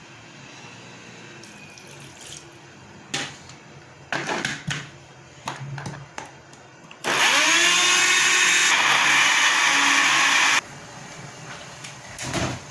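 A few clattering knocks, then a small electric motor spins up, runs steadily for about three and a half seconds and stops abruptly.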